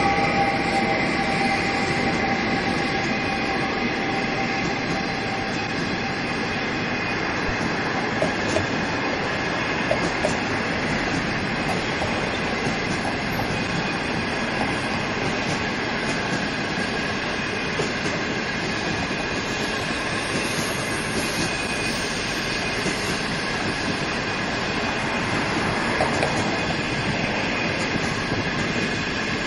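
Green passenger coaches of a locomotive-hauled train rolling past at speed: a steady rumble of steel wheels on rail, with a few sharp clicks as wheels cross rail joints.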